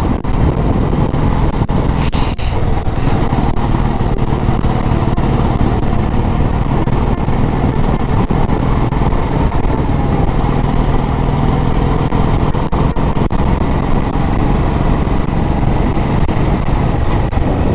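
Royal Enfield Bullet's single-cylinder engine running steadily as the motorcycle cruises, heard from on the bike with wind rushing past.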